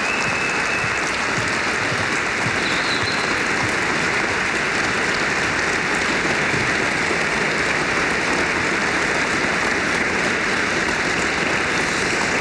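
Audience applauding steadily to welcome guests.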